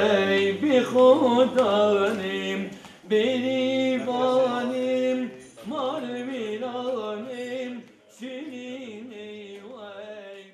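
A singer's voice performing a Kurdish folk song in four long, ornamented phrases over a low musical accompaniment, getting quieter toward the end.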